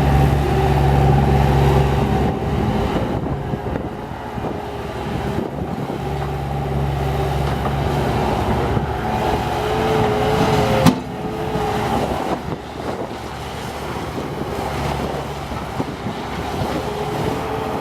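Bobcat 863 skid steer's diesel engine running, its low hum growing stronger and weaker in stretches as it works, with one sharp knock about eleven seconds in.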